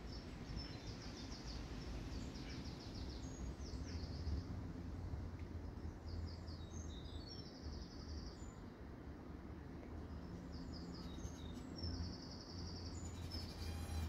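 Songbird singing in several short phrases of quick, high repeated notes, with pauses between them, over a steady low background rumble.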